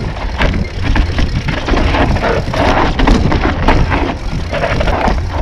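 Mountain bike riding over a rough dirt trail: tyres crunching over stones and earth, the bike rattling with many irregular clicks, and a steady low wind rumble on the helmet camera's microphone.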